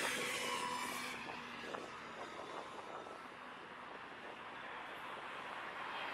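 Road traffic passing on a bridge: the tyre and engine noise of one vehicle fades away at the start, eases to a lull, and the next vehicle approaches near the end.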